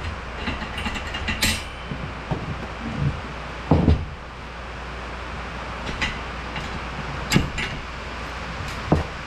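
Metal clicks and clatters of a ratchet tie-down strap being handled and hooked into a steel E-Track rail. There are a few separate knocks, the loudest about four seconds in, with no steady ratcheting rhythm.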